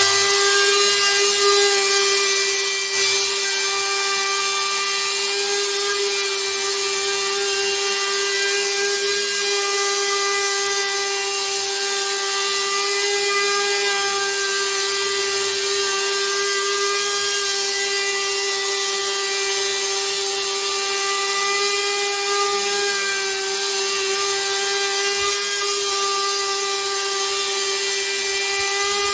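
Electric plunge router with a 2-inch spoilboard surfacing bit running at a steady high whine, cutting across the face of a solid oak slab as it is pushed along a router sled to flatten it. The sound starts abruptly and holds a steady pitch, wavering only slightly as the cut goes on.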